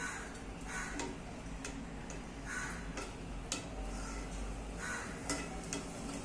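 Perforated steel spoon pushing cooked rice off a steel plate into a pressure cooker: short scraping swishes every second or two, with light metal taps and clicks as the spoon knocks the plate and pot rim.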